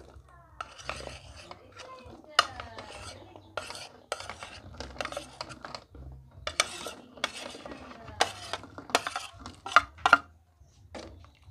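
Metal spoon scraping and tapping on a plastic plate and the rim of a metal pot, pushing glutinous rice balls off the plate into the pot, with irregular clicks and scrapes throughout.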